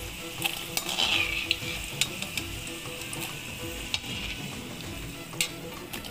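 Potato pieces deep-frying in hot oil in a wok, with a steady sizzle. A metal skimmer clinks and scrapes against the pan now and then as the fried potatoes are lifted out.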